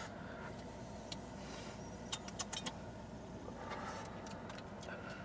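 Quiet steady hum inside a car, with a few light clicks a little after two seconds in as a glass electronic dab rig is handled, and a soft rush near four seconds.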